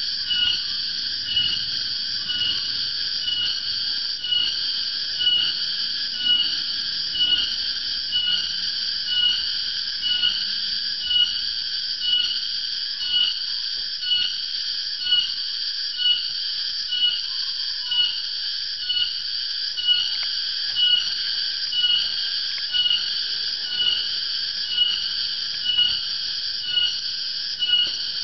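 Tonggeret (garengpung) cicada calling loud and shrill: one continuous whine that swells about once a second. In Java the call is usually taken as a sign that the dry season is coming.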